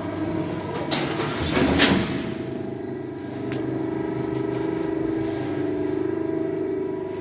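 Metal plate shearing machine running with a steady hum, with a loud, harsh burst of noise between about one and two seconds in.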